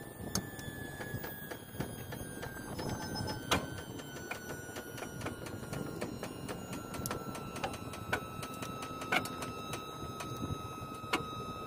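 Steel tow chains clinking and clanking, with scattered sharp metal knocks, as they are hooked between a wrecked semi truck and a tow unit. The louder knocks come about three and a half, nine and eleven seconds in. A faint high whine slowly drops in pitch underneath.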